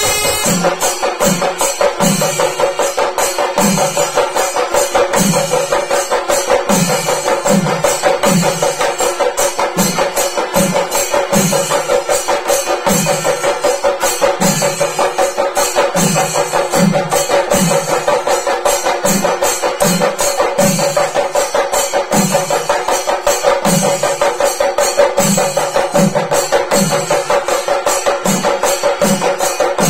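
Chenda drums played in a percussion ensemble: fast, dense stick strokes on the drumheads over a steady deeper beat that comes more than once a second.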